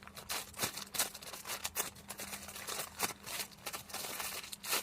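Close handling noise: irregular rustling and small crackling clicks as hands move and squeeze soft squishy toys.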